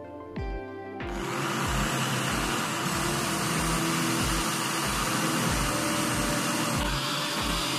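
Corded electric hand drill running under load, boring a hole into a wooden bow riser. The drill starts about a second in and runs steadily for about six seconds, over background music with a steady beat.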